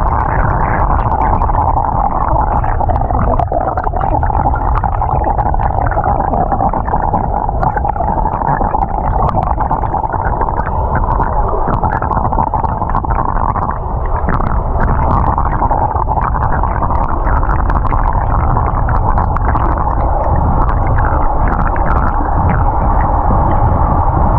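Underwater swimming-pool sound picked up by a submerged camera: a steady, muffled rumble and hiss with faint scattered clicks.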